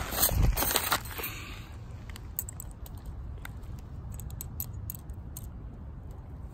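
Handling noise as the tent and its bag are moved for about the first second, then light metallic clicks and clinks as a thin metal tent stake is worked against a tent corner's steel ring.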